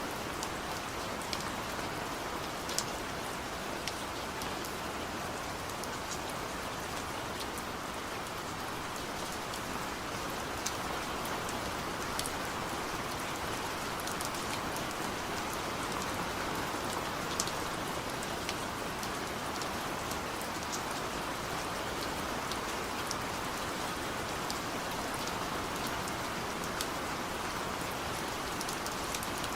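Steady rainfall pattering on a surface, an even hiss with scattered sharper drop ticks.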